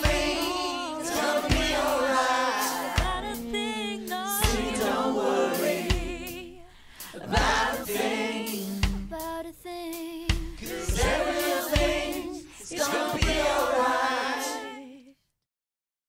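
Many voices singing together in harmony over a reggae band with a steady drum beat, a home-recorded ensemble mixed into one performance. The music stops abruptly near the end.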